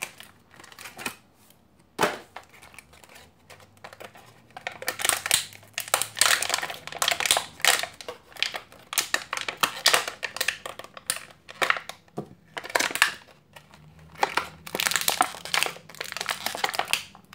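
Clear plastic toy packaging crinkling in irregular bursts as hands pull it apart and work small figures out of it, with a sharp click about two seconds in.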